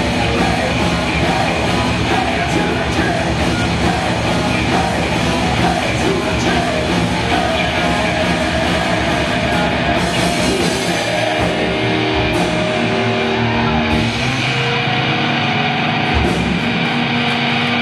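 Heavy metal band playing live: distorted guitars, drums and vocals. About ten seconds in, the band moves to long held chords, with a few cymbal crashes.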